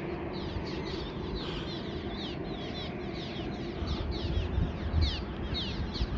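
Many small birds chirping, a dense run of quick, overlapping falling chirps, over a low rumble that swells about four to five seconds in.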